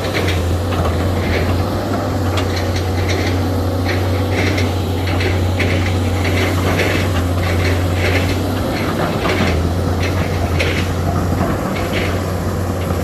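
SANY hydraulic excavator's diesel engine running steadily under load, with a stream of short, sharp metallic clicks and squeaks from the working machine.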